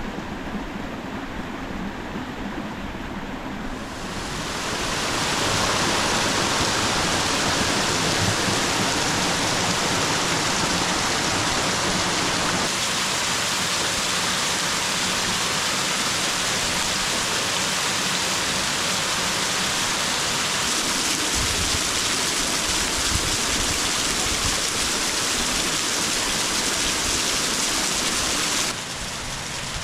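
Steady rush of a small waterfall spilling and trickling over rock ledges. It swells louder about five seconds in and falls back just before the end.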